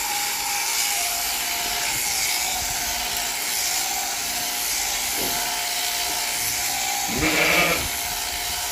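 Sheep shears running steadily through a fleece, and a sheep bleats once, briefly, about seven seconds in.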